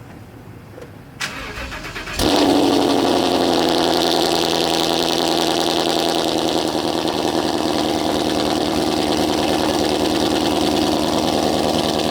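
A Ford Mustang GT's Gen 2 5.0 Coyote V8, with freshly fitted long-tube headers, cranks on the starter for about a second, then fires about two seconds in. It settles straight into a loud, steady idle.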